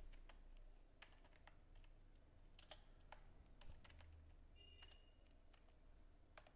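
Faint computer keyboard typing: irregular keystroke clicks as a word is typed.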